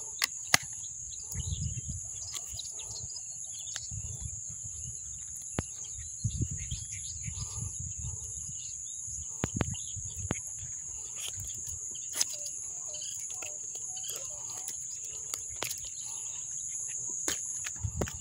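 A steady high-pitched chorus of insects, such as crickets, carrying on without a break. Scattered sharp clicks and knocks of handling close to the microphone, and a low rumble now and then.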